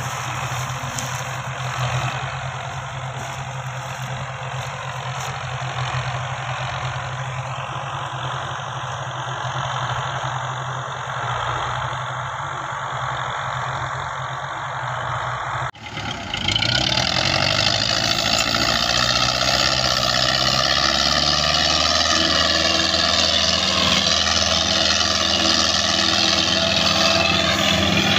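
Belarus 510 tractor diesel engines running steadily at a low, even pitch while coupled to a loaded sugarcane trolley. About sixteen seconds in, after a sudden cut, a louder tractor diesel engine runs hard at a higher pitch, hauling a cane-loaded trolley.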